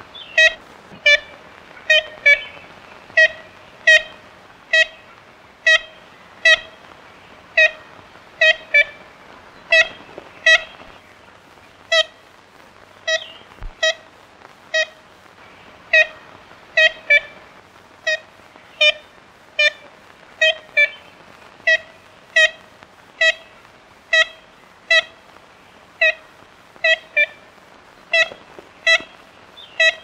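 Ivory-billed woodpecker giving its repeated 'kent' calls: short notes on one steady pitch, single and in pairs, about one or two a second throughout.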